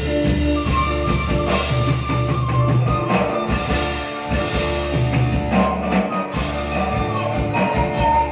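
Live dangdut band (orkes melayu) playing an instrumental passage: drums and bass keep a steady beat under a sustained melody line, with no singing.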